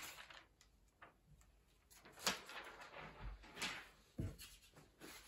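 Faint rustling and crinkling of plastic film and paper being pressed and handled by hand, in several short swishes, with a soft knock about four seconds in.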